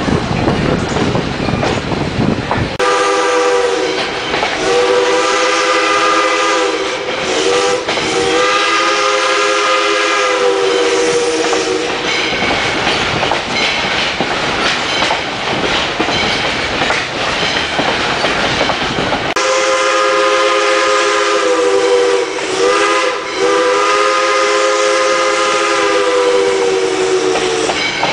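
Steam locomotive's chime whistle blowing two grade-crossing signals, each a series of long blasts with one short one, long-long-short-long. Between the signals, the coach's wheels clack and rumble over the rail joints.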